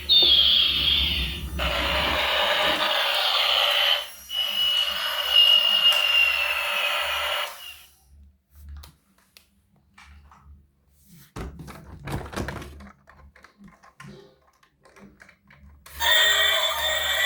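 Electronic toy sound effects from a small, tinny speaker, with gliding tones that include a slow falling whine, for about seven seconds. Then light handling clicks and knocks until the electronic sound starts again near the end.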